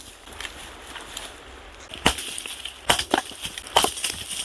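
Firewood being split with an axe: a sharp strike on a log about two seconds in, then three more strikes and cracks in quick succession near the end.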